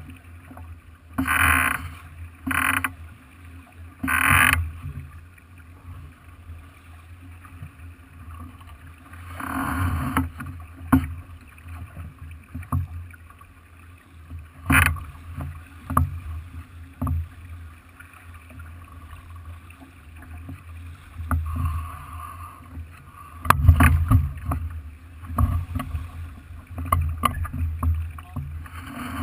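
Racing sailboat under way: a steady low rumble of wind and water along the hull. A few louder rushes, like spray or wave wash, come and go, with scattered sharp clicks and knocks.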